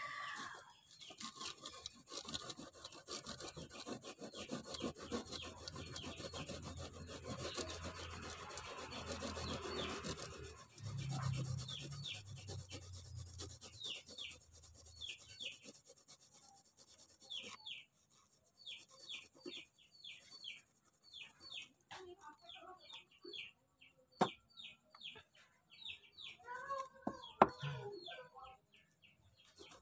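Garlic cloves being grated on a metal hand grater: a run of short rasping strokes, about two to three a second, over a low rumble in the first half.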